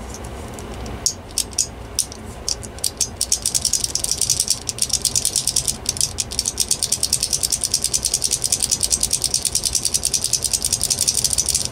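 Fast, even clicking rattle of something worked by hand, about nine clicks a second. It starts as scattered clicks, settles into a steady rhythm about three seconds in, and cuts off suddenly at the end.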